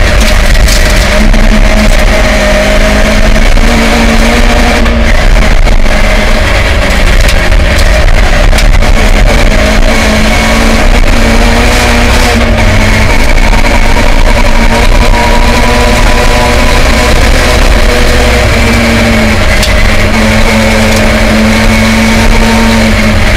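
Ford Escort Mk2 rally car with a Connaught Warrior 2.4 engine, heard from inside the cabin at full speed on gravel. The engine revs rise and fall repeatedly as the driver works through the sequential gearbox, over a constant rush of tyre and road noise with sharp ticks of stones hitting the car.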